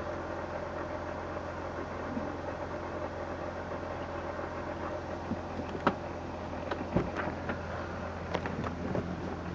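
BMW E46 320i straight-six idling steadily on a cold engine, with a few sharp clicks or knocks over the idle in the second half.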